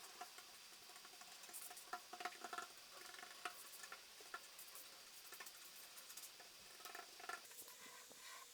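Faint scratching and scattered light clicks from the old finish being worked off the wooden cash drawer.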